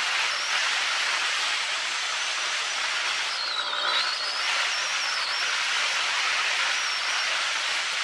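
Steady rushing hiss of wind over the microphone of a camera riding on a moving motorcycle. About halfway the hiss eases briefly and a thin whistle dips and rises.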